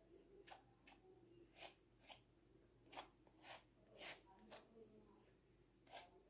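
Palette knife working thick gold acrylic paint onto canvas: about nine short, faint scrapes and dabs at irregular intervals.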